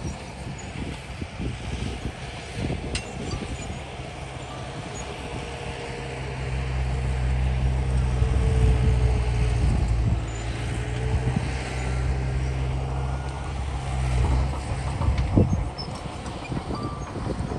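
Heavy diesel earthmoving machinery working: the engine drones, gets louder and heavier from about six seconds in, and drops back near the end, with scattered clanks and knocks throughout.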